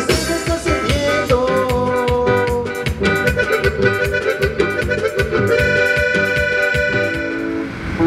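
Live band playing amplified through an RCF HDL10A line array and JBL SRX828S subwoofers: drums keep a steady beat under bass guitar and keyboard, and held horn-like chords come in about five and a half seconds in.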